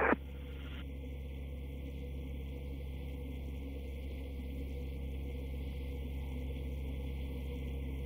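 Steady low hum and faint hiss of a recorded air traffic control radio frequency, open between transmissions with no one talking.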